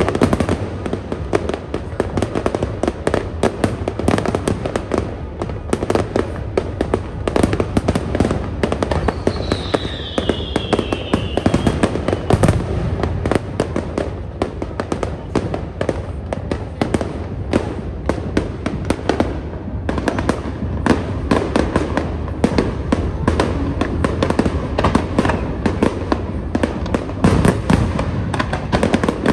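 Fireworks display: a dense, continuous run of crackling bangs and pops, with a falling whistle about a third of the way through.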